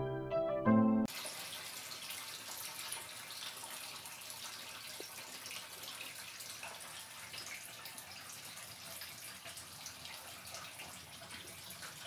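Piano music that cuts off about a second in, then a steady stream of water running into the wash tub of a Sharp twin-tub washing machine as the tub fills.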